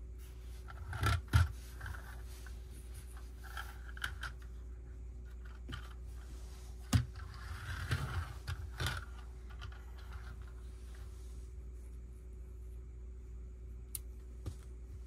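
Lego plastic pieces being handled by hand: scattered sharp clicks and short light scrapes in a few clusters, the loudest about a second in and about seven seconds in, over a steady low hum.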